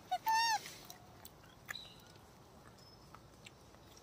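Newborn rhesus macaque giving one short, high-pitched cry, about a third of a second long, that arches up and then drops, near the start; after it only a few faint clicks.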